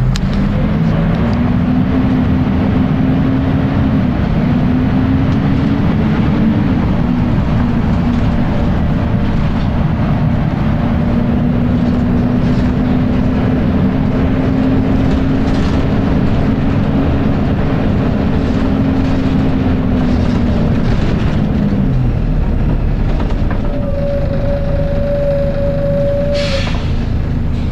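Volvo B10BLE bus's horizontal six-cylinder diesel and very loud cooling fan running, heard on board as a heavy rumble with a whine. The whine rises at the start, holds steady and falls away about 22 seconds in. A brief higher whine comes near the end.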